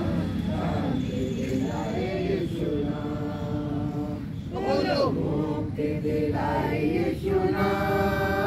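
A small group of men and women singing a hymn together without accompaniment, in long held notes.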